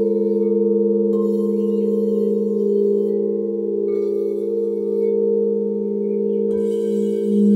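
Crystal Tones alchemy crystal singing bowls ringing together in a layered, sustained drone with a slow wavering. Fresh tones join about a second in, again around four seconds, and once more near the end as further bowls are played.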